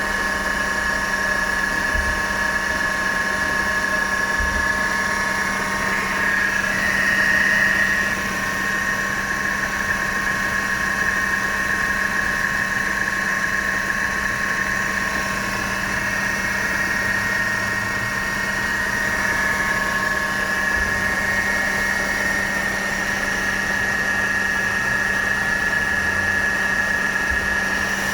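Mercedes-Benz W211 E200 Kompressor's supercharged four-cylinder engine idling with a steady high-pitched whine over a low hum. The whine briefly rises in pitch and loudness about six seconds in. The whine is the abnormal supercharger noise being shown.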